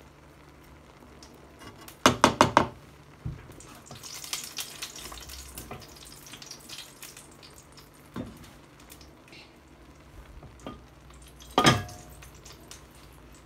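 Kitchen utensil striking a cooking pot: a quick run of four clinks about two seconds in and one more with a short ring near the end. A few seconds of light crackling sizzle fall between them.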